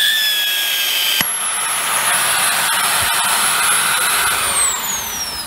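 Hoover WindTunnel Air Pro upright vacuum's motor running with a high whine and rushing air, the dust canister removed and the port drawing a lot of suction. A sharp click about a second in; from about four seconds in the whine falls steadily as the motor spins down.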